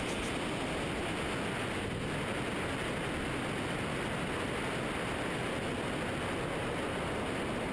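Steady rush of air over the camera microphone during a wingsuit flight, an even hiss without change.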